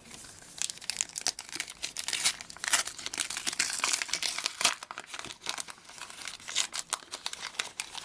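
Foil trading-card packet being crinkled and torn open, a dense run of irregular crackles and rips.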